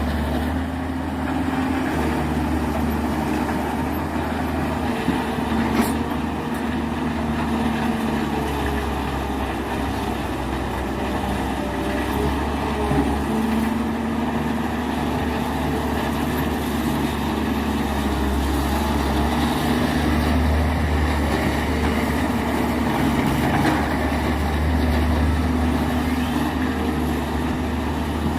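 Heavy diesel engine running steadily at a low, even speed, with a single sharp click about six seconds in.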